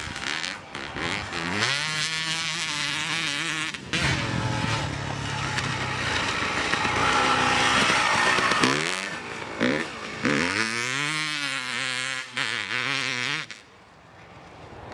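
Suzuki RM 250 two-stroke motocross engine, without its FMF exhaust fitted, revving hard under acceleration, its pitch climbing and holding several times with short breaks between. Near the end it becomes much quieter as the bike moves away.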